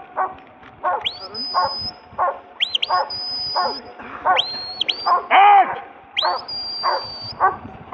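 Huntaway barking steadily and repeatedly as it drives sheep up the hill, with the handler's shepherd's whistle sounding about four times, each rising and then holding a high note. About five and a half seconds in comes one loud, drawn-out shouted call close to the microphone.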